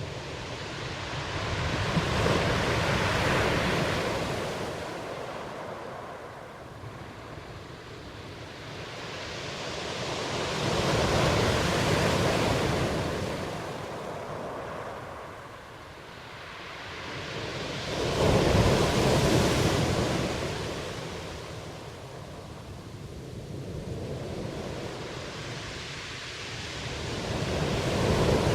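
Ocean waves breaking and washing in, each wave swelling up and fading away over several seconds, about every eight seconds.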